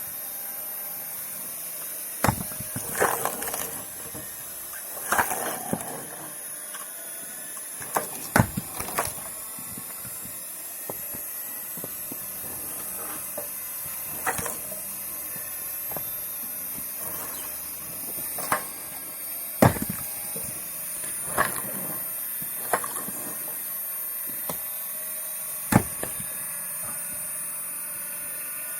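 Firewood being split: a dozen or so irregular sharp cracks and knocks of logs splitting and pieces falling, over a steady high-pitched background whine.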